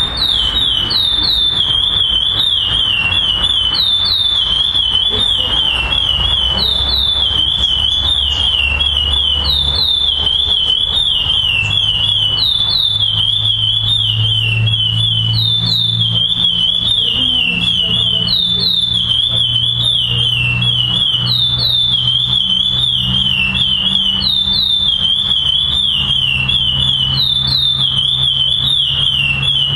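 Male curió (lesser seed finch) singing: phrase after phrase of clear, high whistled notes, each note sliding down in pitch, repeated without a break.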